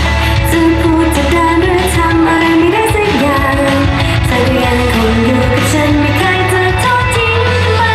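Girl idol group's live pop performance: female voices singing the melody into microphones over a loud backing track with heavy bass and a steady drum beat.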